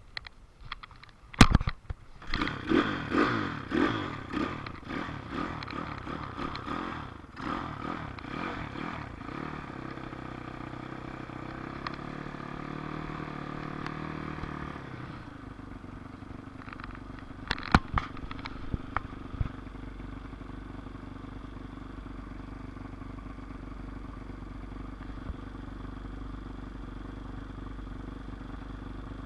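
Dirt bike engine catching and being revved again and again, the pitch rising and falling for several seconds, then running steadily and settling to a lower idle about halfway through. A sharp knock comes just before the engine catches, and a few clicks come later.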